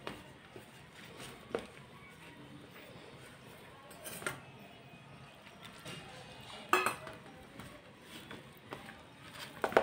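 A steel plate knocking and scraping on the floor as hands mix and knead wheat-flour dough in it. There are a few sharp clanks with faint rubbing of flour between them, the loudest about seven seconds in.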